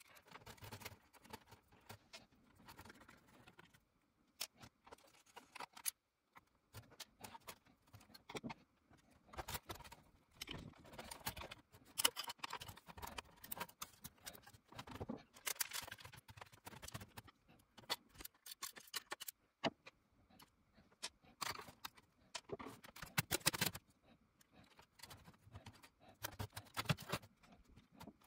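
Irregular small clicks, scrapes and rustles of hands and a screwdriver working inside an Aiwa AD-3150 cassette deck's metal chassis, pushing wires aside around the motor.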